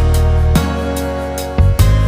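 Background music: sustained instrumental chords over a heavy bass, with beat strikes near the start and about a second and a half in.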